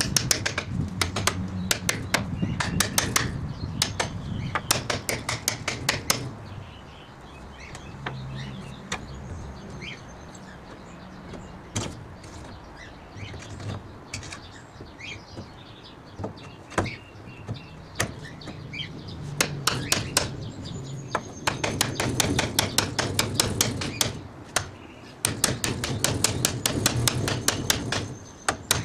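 Runs of rapid clicking and rattling, a steel pin set in a wooden block being worked against a slatted hardwood barbecue lid and its metal frame, with single clicks between the runs.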